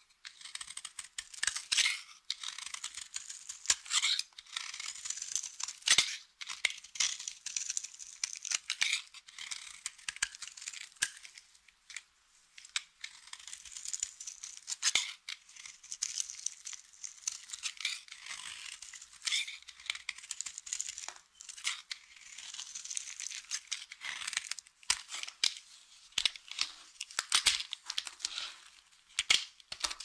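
Knife cutting and shaving a dry bar of soap, breaking off brittle flakes: steady crisp crackling and scraping, broken by many sharp cracks as pieces snap off.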